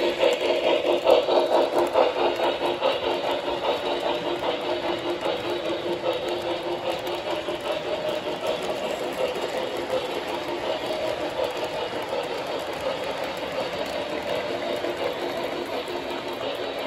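O-gauge three-rail model freight train running past, with a steady rumble and clatter of its wheels on the rails. It is a little louder in the first few seconds.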